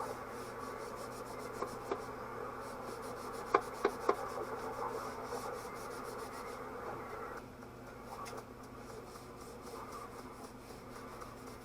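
A hand rubbing and wiping a surface with a small piece of cleaning material, over a faint steady hum, with a few light clicks or knocks around four seconds in and again near eight seconds.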